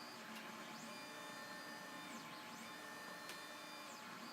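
Quiet room tone: a faint steady electrical hum and hiss, with one small click about three seconds in.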